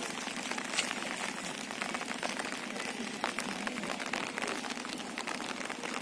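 Light rain falling, a steady dense patter of many small drops.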